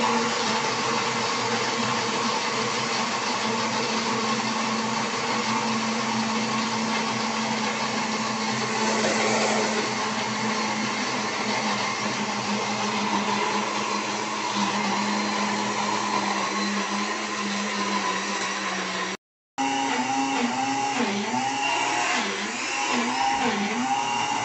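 Countertop blender motor running steadily, puréeing puppy kibble soaked in water into a mush. There is a brief dropout about 19 seconds in. After it the motor's pitch wobbles up and down as the load shifts.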